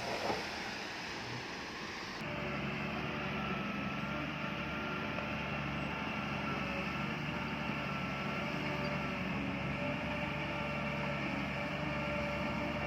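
Heavy diesel engine of earthmoving machinery running steadily. About two seconds in, the sound switches abruptly from a rough hiss to a steady engine hum with a clear pitch.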